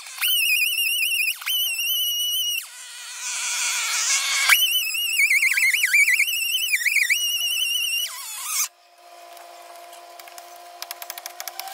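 A cordless power tool's motor whining at a high pitch in three bursts, its pitch wavering and sagging as it cuts into wood, then winding down with a falling whine about eight seconds in. After that come quieter crackles and clicks of brush being handled.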